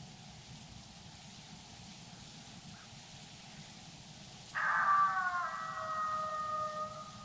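Coyotes howling, several overlapping long howls that set in abruptly about four and a half seconds in, fall slightly in pitch and fade over a couple of seconds.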